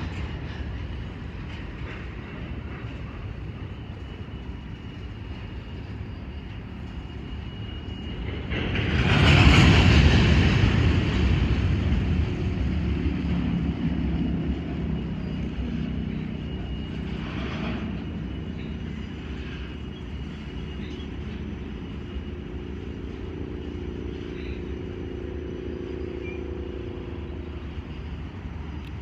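Freight train of covered hopper cars rolling past: a steady rumble of wheels on rail, with a louder rush of noise swelling about nine seconds in and easing off over several seconds.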